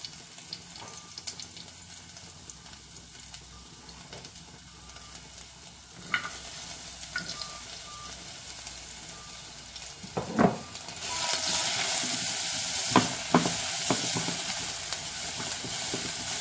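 Chopped onion frying in oil in a saucepan, sizzling while it is stirred with a spatula. The sizzle grows much louder about eleven seconds in, and the spatula knocks against the pan a few times.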